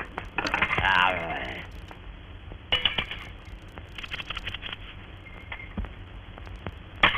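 Cartoon sound effects: a few sharp metallic clinks, like a coin rapped on a tabletop, the loudest cluster about three seconds in and another near the end. A short warbling sound rising in pitch comes just after the start.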